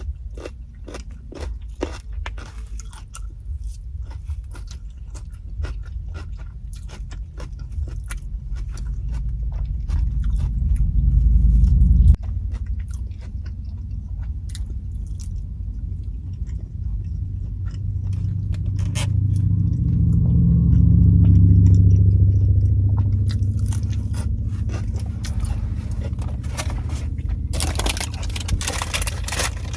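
Close-up chewing and crunching of crisp vegetables (mixed greens with kale, cabbage and broccoli), with many short crunchy clicks. A low rumble builds and cuts off suddenly about twelve seconds in, and another swells and fades in the second half.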